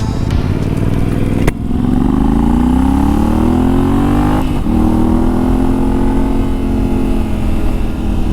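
Yamaha Tenere 700's parallel-twin engine pulling up through the revs under acceleration, a brief dip as it shifts gear, then holding steady at cruising speed. A sharp click about a second and a half in.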